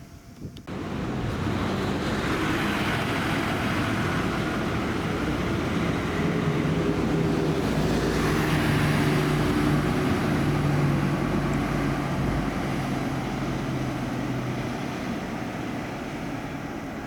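A large bus's diesel engine running as the bus moves past close by. It grows to its loudest about eight to ten seconds in and eases off near the end.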